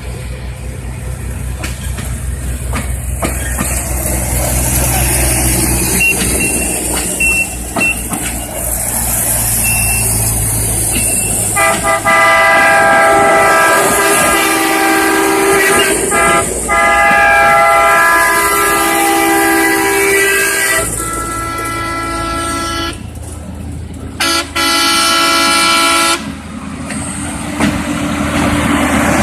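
Rail equipment rumbling along the track. About twelve seconds in, a horn begins sounding in several long blasts with short breaks between them.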